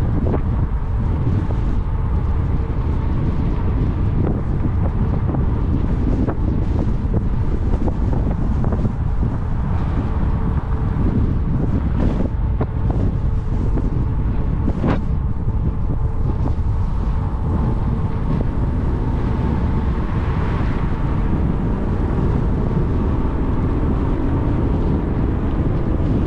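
Wind buffeting the microphone of an action camera on a moving e-bike, a steady low rumble, with a faint steady hum and a few sharp knocks as the bike rides over the bumpy trail.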